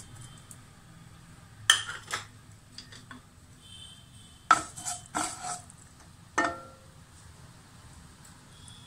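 Kitchen utensils and dishes clinking and knocking against each other and the pan: about half a dozen sharp, irregular knocks, a couple near the start and a cluster around the middle, over a faint steady background.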